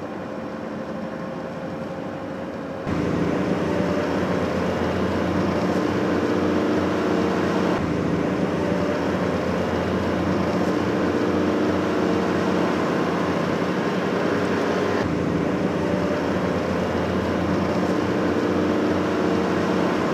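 Steady engine and road noise inside a moving vehicle, with a low engine hum running through it. The noise steps up abruptly in loudness about three seconds in.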